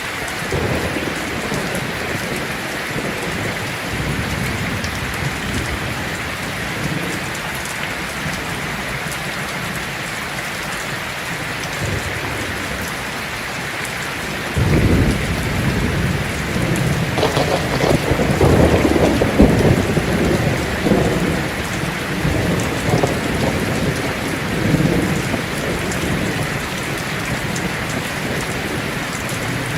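Heavy rain falling steadily on a tin roof. About halfway through, a thunder rumble sets in suddenly, grows loudest a few seconds later and slowly rolls away under the rain.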